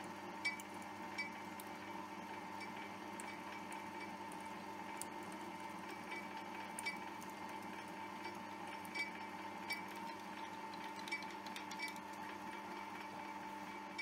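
Metal lathe running steadily, its spindle turning an aluminium workpiece while a drill bit in the tailstock chuck drills into its end. There is a steady hum with faint, scattered ticks.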